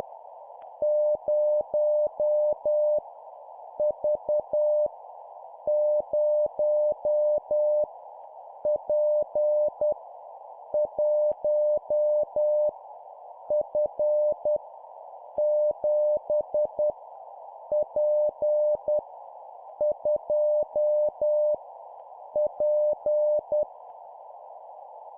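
Morse code at 10 words per minute: a single steady beep keyed on and off in dots and dashes, sending random letters and numbers one character at a time with a pause of about a second between characters, over a steady hiss.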